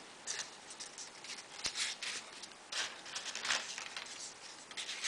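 Folded paper origami units being handled and slid onto a paper model: faint, intermittent rustling and scraping of paper, with one sharp click about a second and a half in.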